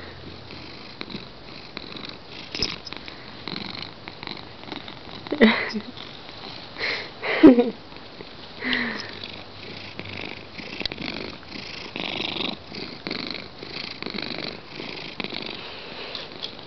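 Domestic cat purring quietly, with a few short, louder sounds whose pitch drops, bunched between about five and nine seconds in.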